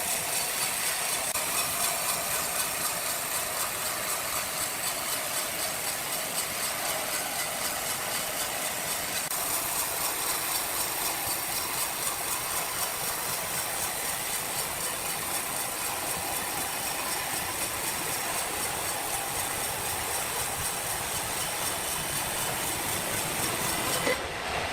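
Sawmill machinery running steadily, a dense mechanical din with a fast, regular rattling pulse, until an abrupt change near the end.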